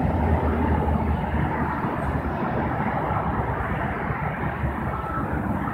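A fire engine's diesel engine runs low and steady as the rig manoeuvres in the road. Near the end its back-up alarm starts beeping.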